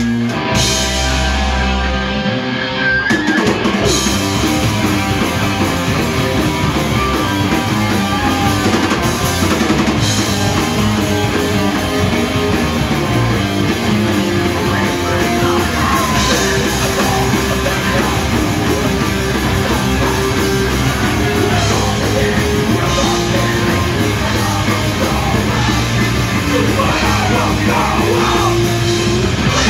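Live punk rock band playing loud: distorted electric guitars and a drum kit, with vocals. The full band with drums comes in about three seconds in and then plays on steadily.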